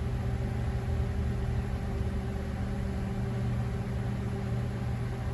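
Steady mechanical hum with a few constant low tones, from running machinery.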